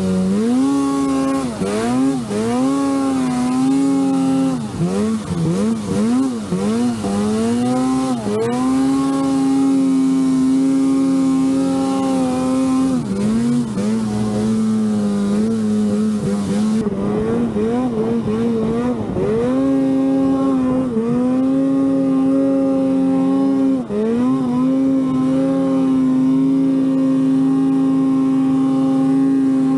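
Arctic Cat Alpha One snowmobile's two-stroke engine under throttle, the revs swelling and dropping again and again, then held high for long stretches with a few brief dips.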